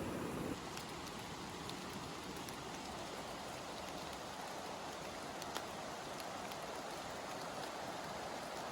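Steady rain falling, coming down in earnest and getting heavier, with a few single drops ticking out above it.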